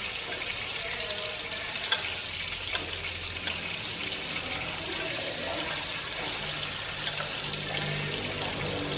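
Whole climbing perch frying in oil in a pan, a steady sizzle, with a few light clinks of a metal spoon stirring fish-sauce dip in a small bowl.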